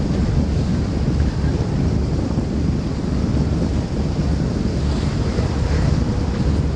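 Wind buffeting the microphone aboard a moving powerboat, a steady deep rumble, with water rushing past the hull.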